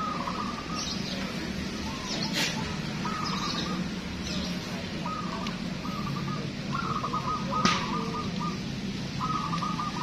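Many caged zebra doves (perkutut) cooing, their quick fluttering coo phrases repeating and overlapping one another, with a few short high chirps. Two sharp clicks cut through, the second, near the end, the loudest.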